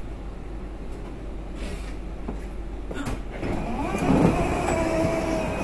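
Copenhagen Metro train running with a steady low rumble, then slowing into a station. From about three seconds in, a whine of steady tones sets in and the sound grows louder.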